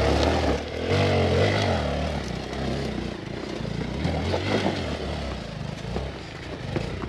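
Hero Xpulse 200 dirt bike's single-cylinder engine running on a trail, its revs rising and falling.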